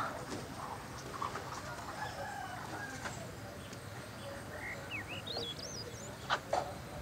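Garden ambience of chickens clucking with a rooster crowing, and quick high bird chirps about five seconds in. Two sharp taps come close together near the end.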